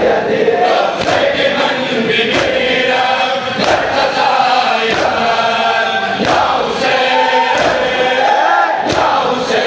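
A crowd of men doing matam, slapping their chests together in unison about every 1.3 seconds, seven strikes in all. Over it a man leads a sung noha through a microphone and the crowd chants along.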